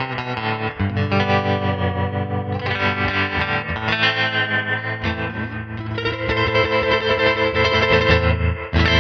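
Electric guitar, a Hallmark Swept Wing, playing chords through the Crazy Tube Circuits White Whale spring reverb and tremolo pedal. The volume pulses several times a second from the tremolo.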